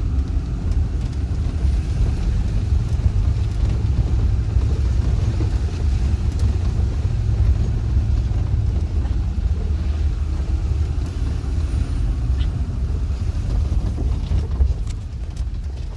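4x4 vehicle driving along a rough dirt track, heard from inside the cabin: a steady low engine and road rumble with a few small clicks and rattles.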